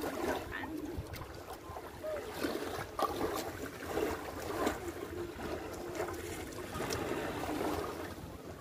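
Shallow seawater sloshing and trickling around feet as a person wades through the shallows, with small irregular splashes.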